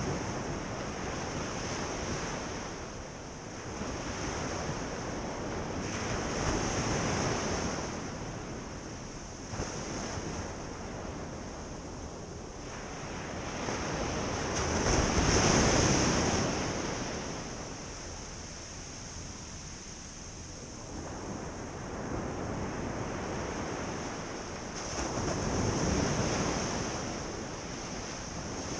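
Ocean surf: waves breaking and washing up the beach, swelling and ebbing every several seconds, with the loudest wave about halfway through.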